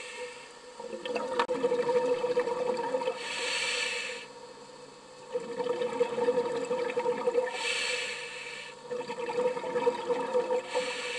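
Scuba diver breathing through a regulator underwater: stretches of bubbling exhalation alternate with about a second of hissing inhalation, roughly every four seconds, over a steady hum.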